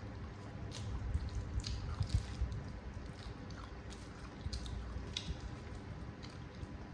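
A person chewing a mouthful of mie nyemek, wet-style noodles, with irregular soft wet clicks and smacks.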